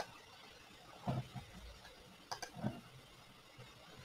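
Faint computer mouse clicks, a few spread over the seconds, one sharp click right at the start, over quiet room tone.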